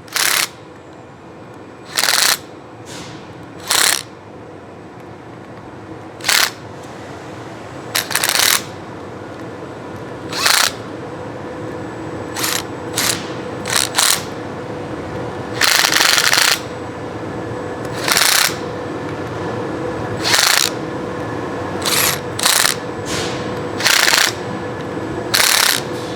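About sixteen short bursts of a power tool, irregularly spaced, as the tie-rod nuts on the intensifier's aluminum end cap are snugged up in turn, over a steady hum that grows slightly louder.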